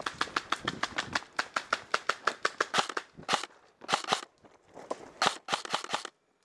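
Airsoft electric rifle firing on full auto, a rapid string of sharp clicks at about ten rounds a second: one long run, then several short bursts.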